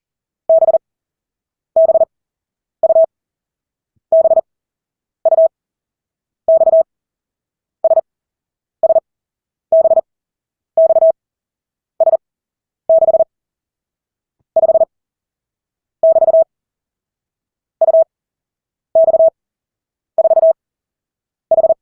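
Morse code tone sending single characters at 40 words a minute: each character is a quick burst of dits and dahs on one steady mid-pitched beep, with pauses of about a second between characters, some eighteen in all.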